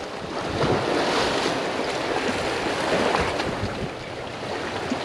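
Small waves washing and splashing over jetty rocks in a steady rush that eases briefly about four seconds in.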